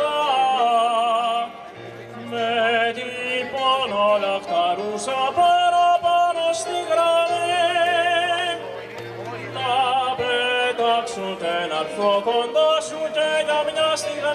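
A live duet of a woman and a man singing into microphones in a classical, operatic style, holding long notes with wide vibrato over keyboard accompaniment.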